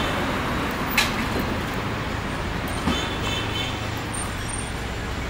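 Steady city street traffic noise, with a sharp click about a second in and a short knock near three seconds.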